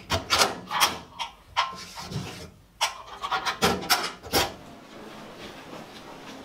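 Key scraping into and turning in the lock of a metal locker: a quick run of clicks, rattles and scrapes over the first four seconds or so.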